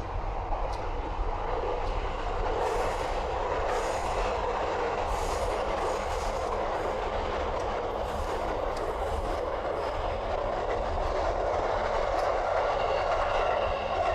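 A train running past: a steady rumble with a clatter of wheels about once a second for several seconds.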